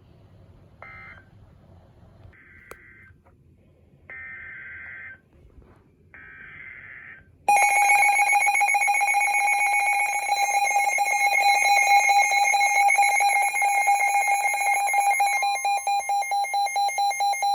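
Short bursts of data tones from a NOAA Weather Radio SAME alert header, then, about seven seconds in, weather radio receivers sound their loud electronic alert alarm, a steady high beep that turns to rapid pulsing near the end: the signal that a warning, here a tornado warning, is being broadcast.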